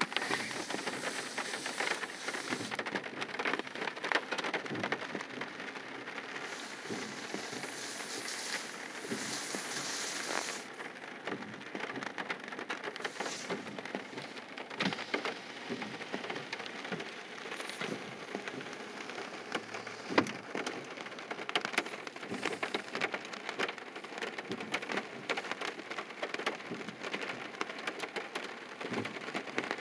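Rain pattering on a car's roof and windshield, heard from inside the car, as a steady dense patter of small drop ticks. A higher hiss comes in over it during the first few seconds and again around eight to ten seconds in.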